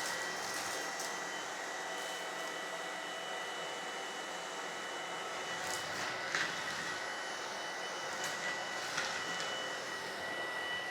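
Tineco PURE ONE S11 cordless stick vacuum running in auto mode: a steady high motor whine over a broad rushing hiss. There are a few brief sharp ticks, around the middle and later on, as dry debris such as lentils and rice is sucked up.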